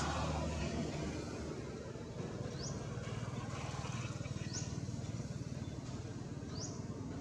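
Outdoor background: a steady low hum with a short, high rising chirp repeating about every two seconds.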